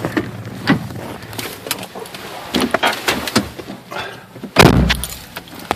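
A door shutting with a heavy thud about four and a half seconds in, after a series of light clicks and knocks from handling.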